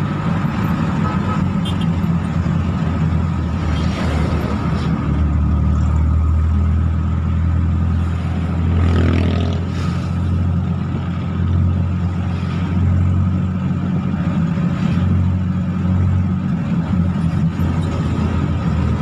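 Vehicle engine running steadily at road speed, a continuous low drone, while pulling a heavy load of roofing sheets and steel tubing.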